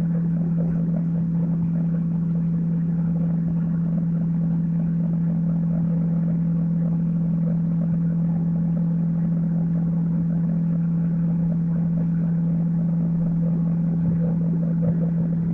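A steady low hum with faint irregular bubbling over it, from a pot of betel leaves and fennel simmering on a stove.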